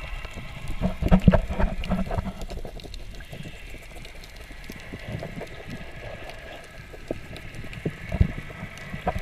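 Underwater splashing and bubbling picked up by a camera submerged in the water. It is muffled, with a burst of knocks and thumps about a second in and again near the end, over a faint steady whine.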